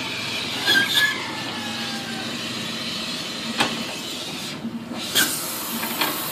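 Scattered sharp knocks, about five, of a hand tool worked against a pickup's front wheel hub to free a seized wheel bearing, over a steady background noise with a faint hum.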